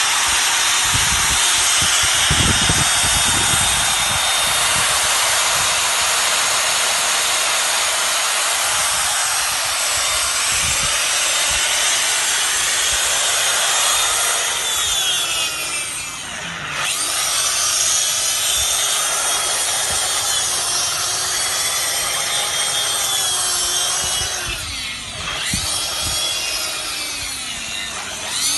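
Waterproof electric grinder running and grinding, a dense hissing whine. About halfway through and again near the end, the motor's pitch sags and recovers.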